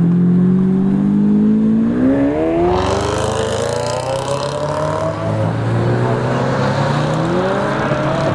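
Lamborghini Aventador V12 accelerating hard away, its engine note climbing steeply through the revs from about two seconds in, with a rough, raspy edge at its loudest. Near the end a second car's engine rises as it follows.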